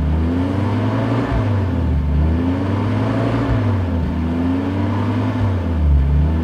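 A 1967 Wolseley Sixteen-Sixty's 1622 cc BMC B-series four-cylinder engine is revved from inside the car. It is blipped up and down in smooth swells, rising and falling about every two seconds.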